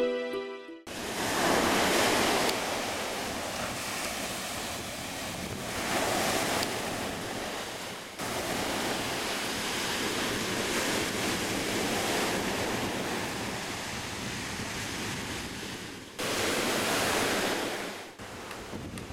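Surf washing onto a sandy beach, with wind on the microphone. The wash swells and fades several times, and the sound changes abruptly a few times where clips are joined.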